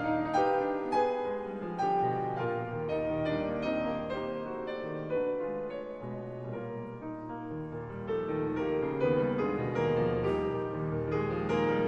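Background music: gentle piano playing a steady run of notes, with a low accompaniment beneath.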